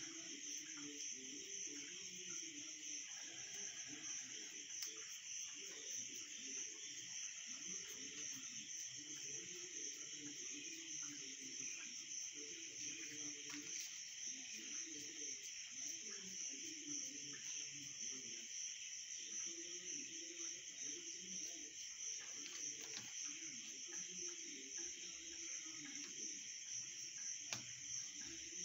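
A steady high-pitched background drone with no break, under faint low murmuring that comes and goes and a few light ticks.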